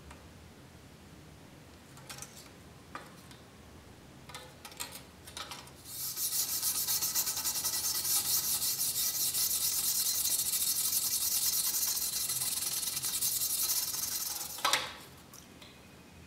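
A stiff brush scrubbing rust off a vinegar-soaked steel knife blade: a steady, scratchy rasp of rapid strokes that starts about six seconds in, lasts about eight seconds, and ends with a knock. Before it there are only a few faint taps.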